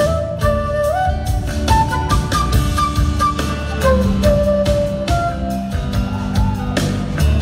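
Live band playing an instrumental passage: a lead melody line sliding between sustained notes over drums, bass and electric guitar.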